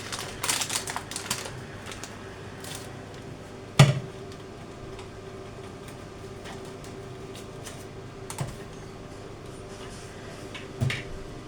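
Kitchen handling noises: a quick run of light clicks and clatter, then one loud knock about four seconds in, then a steady hum with a few faint clicks.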